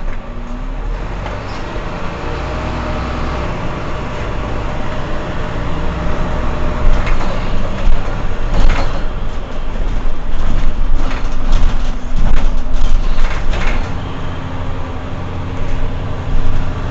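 Mercedes-Benz Citaro C2 Euro 6 city bus standing with its engine idling, a steady low rumble with a hum that drops out and comes back. Several short sharp noises break in around the middle and again later on.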